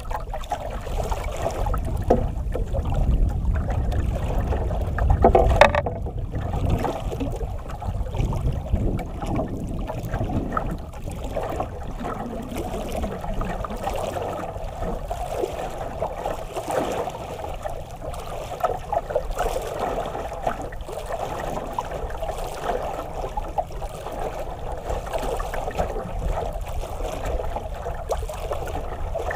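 Sea water lapping and splashing against the hull of a small outrigger canoe (banka). There is a heavier low rumble over the first six seconds or so, then the water sound goes on steady.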